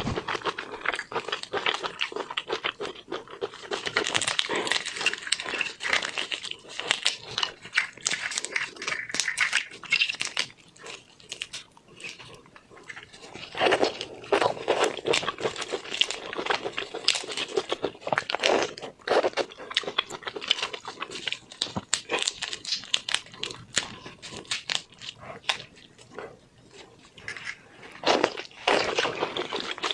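Close-miked eating sounds of seafood, with continuous crunching bites and chewing that get louder about halfway through and again near the end.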